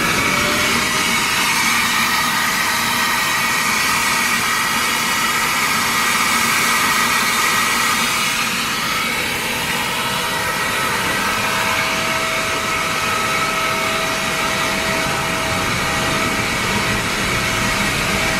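Ingersoll Rand rotary screw air compressor with a 50 hp electric motor running: a loud, steady machine noise with a high whine. The whine finishes rising in the first second or two, then holds steady.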